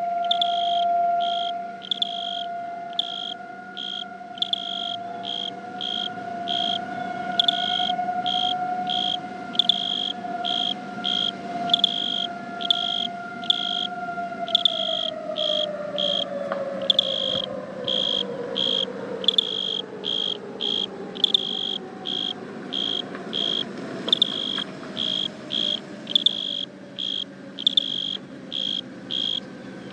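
Outdoor warning siren sounding a steady tone during a siren test, then winding down with slowly falling pitch from about halfway on. Loud crickets chirp in an even, repeating rhythm throughout.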